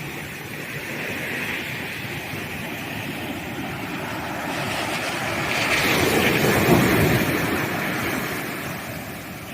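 Ocean waves breaking on a sandy beach: surf washing steadily, with one wave building and crashing about six seconds in, then washing out and fading.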